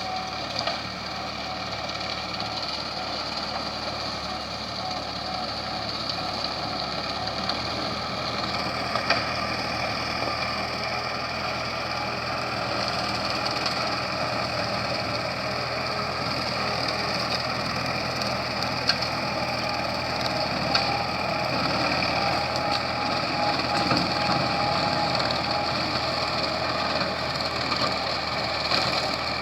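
Valmet 85id tractor's diesel engine running loudly and steadily while driving a rotary mower. About eight seconds in, the sound steps up a little, louder and brighter, and holds there.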